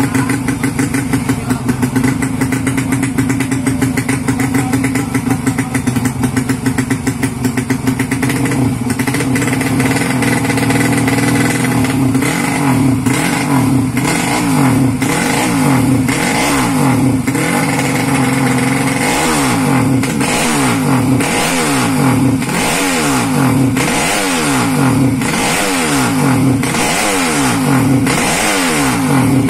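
Motocross bike engine running at a steady fast idle for several seconds, then revved in repeated throttle blips, about one a second, each rising and falling in pitch.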